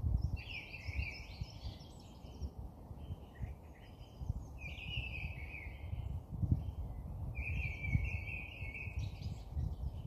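Small songbirds singing in short phrases of a second or two, repeated every few seconds, over a low steady background rumble.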